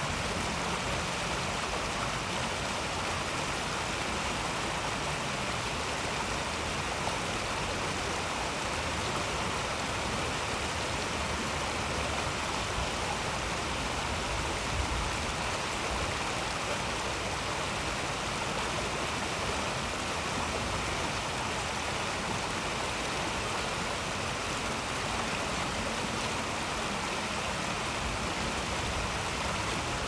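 Shallow stream water rushing and splashing over rocks in a small rapid, a steady unbroken flow sound.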